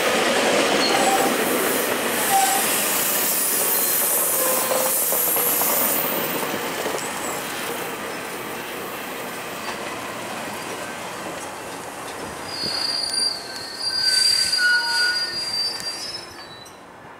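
GO Transit bilevel passenger coaches rolling past, slowing as the train arrives, with a steady rumble and rattle of wheels on rail that gradually eases. Near the end come a few bursts of high-pitched squealing as the train brakes, before the sound fades.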